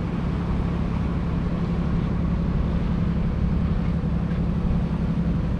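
Passenger boat's engine running steadily at cruising speed, heard on board: a constant low drone with a steady hum.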